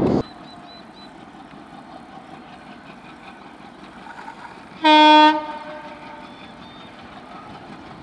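Indian Railways ALCO WDG 3A diesel locomotive's horn giving one short blast, about half a second long, roughly five seconds in, over a quiet background. At the very start, the rumble of passing coaches cuts off abruptly.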